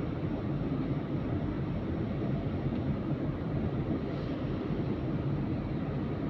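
Electric single-deck bus running steadily, a continuous low rumble with faint steady high tones over it.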